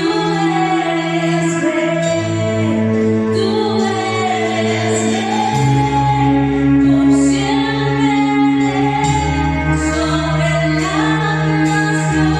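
Worship song: women singing over sustained chords whose low notes change every few seconds.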